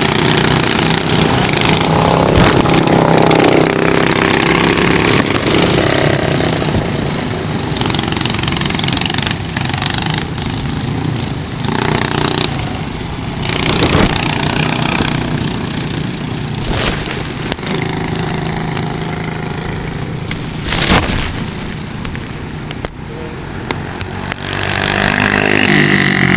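Racing kart engine running hard, its pitch rising and falling as it revs up and down, under a steady rushing noise. A few sharp knocks come through, the loudest near the end.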